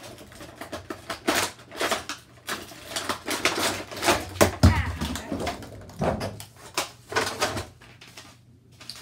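A clear plastic toy display box being handled and opened: an irregular run of crackles, clicks and rustles of plastic and cardboard, with a dull thump a little past halfway.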